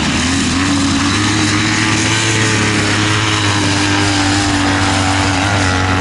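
Classic trials motorcycle engine pulling up a steep grassy climb, its note rising a little at first, then holding steady under load and dropping near the end as the throttle eases.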